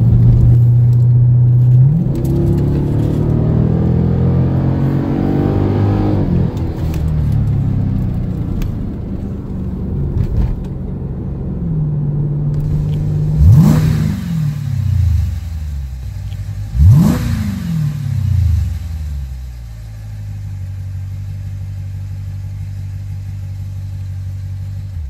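2014 Jeep Grand Cherokee SRT's 6.4-litre HEMI V8 through a Magnaflow stainless steel exhaust. It runs steadily from inside the cabin, then pulls hard for about four seconds with the note climbing before easing off. Later come two sharp throttle blips about three seconds apart, and then it settles to a steady idle.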